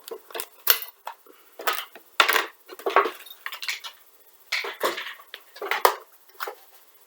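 Parts of a gel blaster being handled during disassembly: a run of irregular sharp clicks and short clattering knocks.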